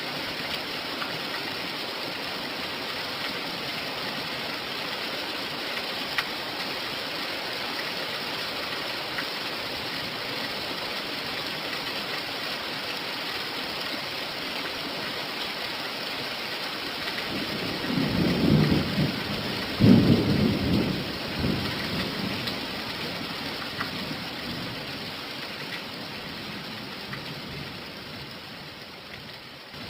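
Steady rain, with a peal of thunder rumbling through about two-thirds of the way in, a sharp crack at its loudest before it dies away. The rain grows quieter near the end.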